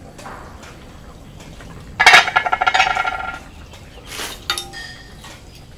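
Metal pot lid clattering down and rattling with a ringing clang for over a second. A second, shorter metallic clink follows a little later.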